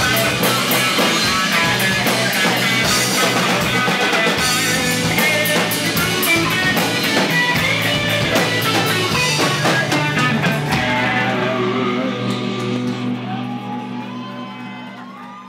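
Live rock band playing: strummed electric guitar over a drum kit. About eleven seconds in the drums stop and a held chord fades away.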